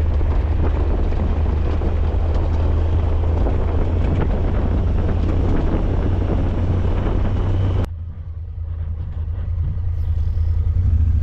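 Motorcycle engine running under heavy wind noise on the microphone. About eight seconds in the wind noise cuts off suddenly and the engine sounds quieter, then it builds again near the end.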